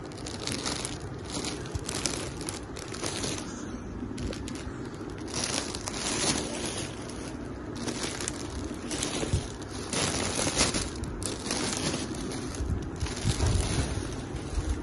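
Clear plastic wrapping on stuffed toys crinkling in irregular bursts as a hand presses and shifts the bagged toys, with a few low bumps near the end.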